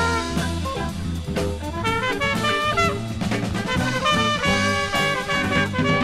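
Jazz-rock recording playing: a fast, busy melodic line over drums and a steady bass.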